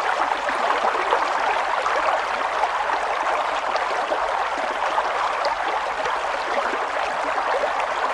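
Steady babble of running water, an even, unbroken rush with fine flickering detail.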